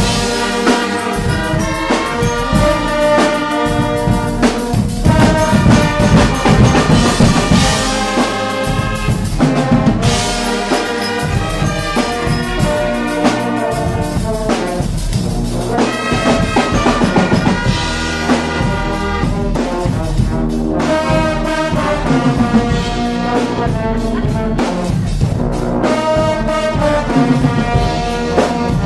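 Guggenmusik band playing loud brass music: trombones, trumpets and sousaphones over a drum kit with cymbals and a bass drum keeping a steady beat.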